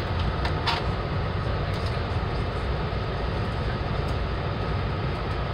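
Amtrak passenger train running at speed, heard from inside the car: a steady low rumble with a rushing noise over it, and a few light clicks.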